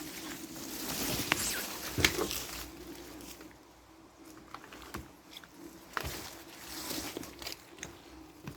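Footsteps scuffing and crunching over debris on a derelict building's floor: irregular clicks, crackles and a few sharper knocks, busiest in the first three seconds, over a faint steady hum.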